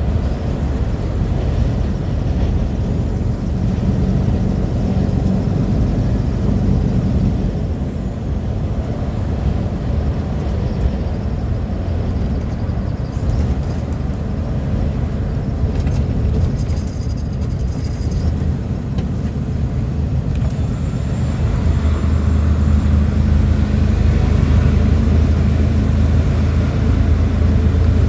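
Lorry's diesel engine running steadily at motorway speed, heard inside the cab over tyre and road noise. The low engine hum grows louder and stronger about three quarters of the way through.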